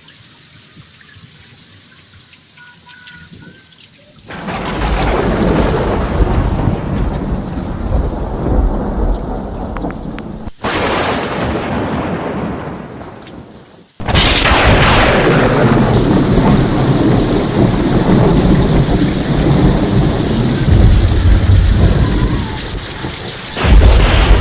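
Steady rain hiss, then about four seconds in a loud thunderclap breaks in and rumbles on with the rain. A second sharp, crackling thunderclap hits about halfway through and rolls on, with another loud clap starting near the end.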